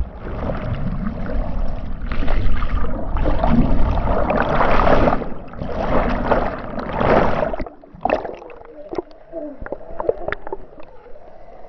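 Water churning and bubbling loudly around a GoPro camera in the lake. About eight seconds in it drops to quieter sloshing with faint clicks.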